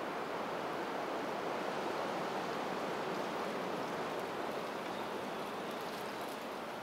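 Steady rushing of flowing water, an even noise with no separate events.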